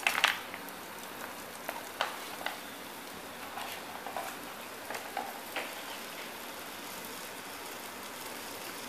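Chicken pieces sizzling in their own fat in an aluminium pot: a steady frying hiss with scattered pops and crackles, loudest just at the start as red sauce is poured into the hot pot.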